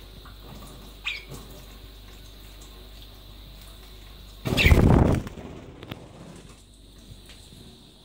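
Water from a kitchen tap running into a stainless steel sink as a budgerigar bathes under it, with a short chirp about a second in. About four and a half seconds in comes a loud, brief flurry of the wet budgie's wings flapping.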